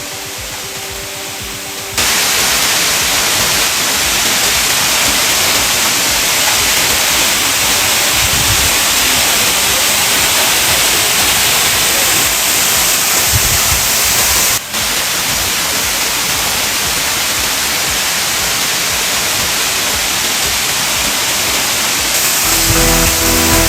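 Waterfall rushing close by: a loud, steady hiss of falling water that cuts in about two seconds in, with a brief break midway. Background music plays at the start and comes back near the end.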